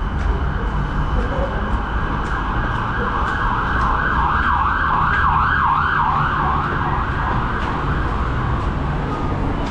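A siren warbling up and down, about two to three sweeps a second, swelling in about a third of the way through and fading again near the end. It sounds over the steady low rumble of a BTS Skytrain car running.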